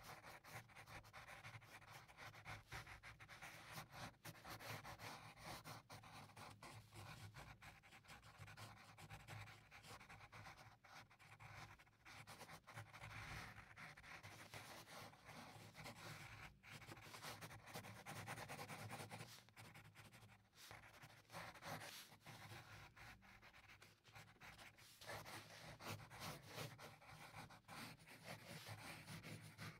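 Faint scratching of a mechanical pencil on paper, in quick repeated sketching strokes.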